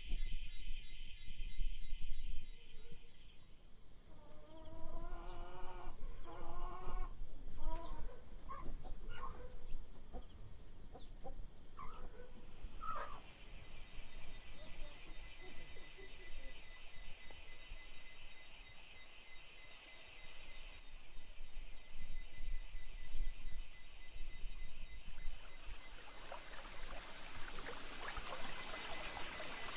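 Rural outdoor ambience: a series of short calls from chickens, with a steady high-pitched whine underneath. A hissing noise builds near the end.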